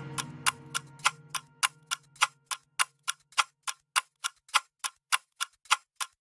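Steady clock-like ticking, about three and a half ticks a second. For the first few seconds it plays over the fading tail of the music.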